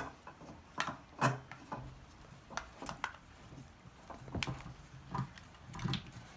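Short, irregular plastic clicks and rubbing from an adjustable bed base's handheld remote controller being handled as a battery is fitted into it and its battery compartment is worked.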